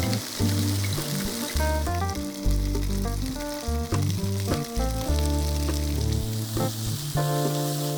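Food frying in oil in a pan, a steady sizzling hiss, under background music with a bass line and melody.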